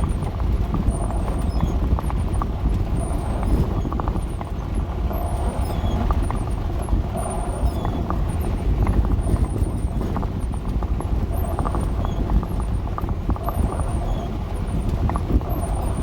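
Van driving over a rough, muddy road: a steady low rumble of engine and tyres with frequent knocks and rattles from the body and suspension.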